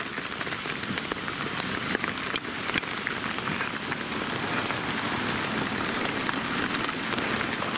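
Steady rain falling: a continuous hiss with scattered sharp taps of drops.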